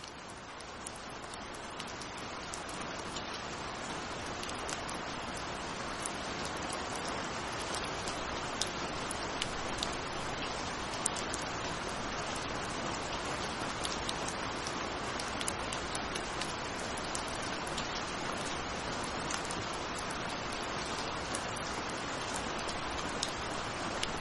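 Steady rain falling, with many sharp individual drop ticks over a dense hiss. It swells in over the first few seconds, then holds steady.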